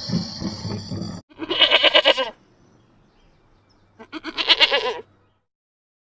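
An animal sound cuts off abruptly about a second in. Two wavering bleats follow, each about a second long, a couple of seconds apart.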